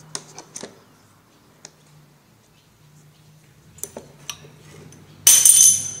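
Metal tools and washing-machine transmission parts clinking as they are handled: a few light clicks, then a loud metallic clatter with a ringing edge about five seconds in, lasting about half a second.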